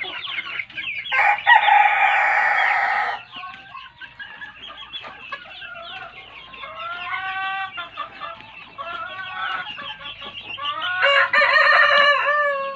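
Chickens in a flock: a rooster crows about a second in and again near the end, and hens cluck and call in between.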